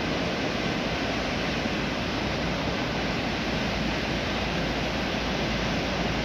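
Atlantic surf breaking along the shore: a steady, even wash of noise in which no single wave crash stands out.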